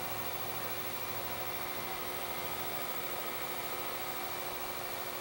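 Heat gun running on its low setting, a steady blowing hiss with a constant motor hum, held under a circuit board to bring the solder up toward melting.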